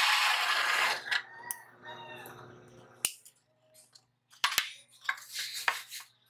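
Drill press with a hole saw grinding through a steel plate, loud and harsh, stopping about a second in as the cut finishes. Then a fading ringing tone, and several sharp metal clinks and knocks as the cut plate is lifted off the cutter, over a steady low hum.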